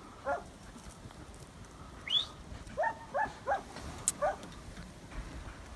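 Hog-hunting dogs barking in short, separate barks, about six in a few seconds, with one higher rising yelp about two seconds in: the dogs have found a hog and are baying it.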